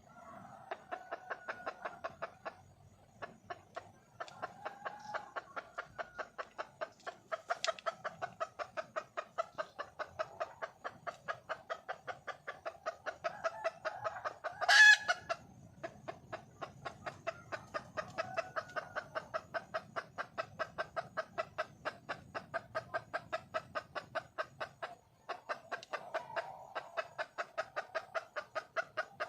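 Red junglefowl hen (wild hen) giving a long run of short, evenly repeated clucks, about three a second, the call a hen makes to draw a mate. The run pauses briefly twice, and about halfway through one sharper call stands out as the loudest sound.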